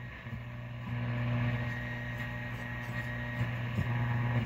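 Speaker of an RCA Victor vintage tube radio giving a steady low hum with static hiss, tuned off any station. The hum drops away abruptly near the end.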